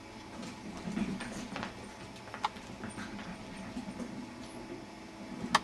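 Jack Russell terrier puppy and beagle playing quietly: scuffling with a few sharp clicks and faint low growl-like sounds.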